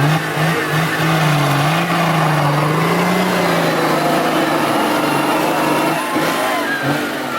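A 4x4 off-road vehicle's engine running under load, its pitch wavering up and down as the throttle changes, then easing off about four seconds in.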